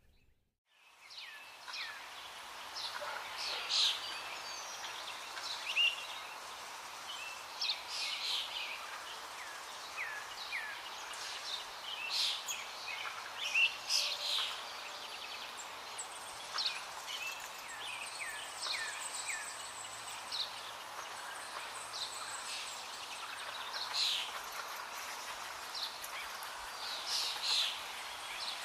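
Birds chirping and twittering, many short calls over a steady hiss, starting about a second in.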